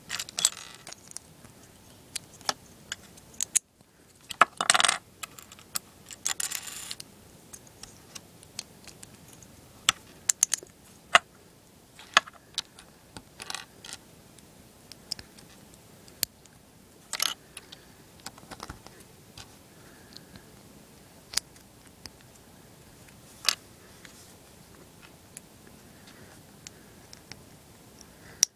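LEGO plastic bricks clicking and snapping together as they are assembled by hand: irregular sharp clicks, with a couple of longer rattling scrapes of pieces being handled about five to seven seconds in.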